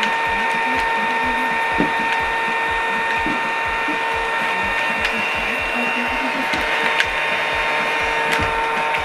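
Battery-powered toy vacuum cleaner running: a steady motor whine with a fast mechanical clicking rattle, about four to five clicks a second.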